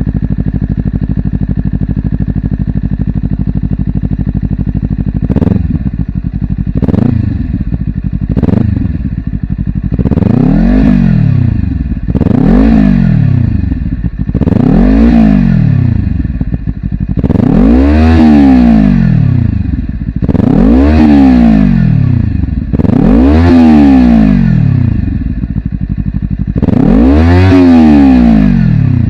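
Honda CBR250RR parallel-twin engine breathing through a WR'S slip-on silencer. It idles steadily for about five seconds, then takes three short throttle blips, then about seven longer revs, each climbing and dropping back toward idle.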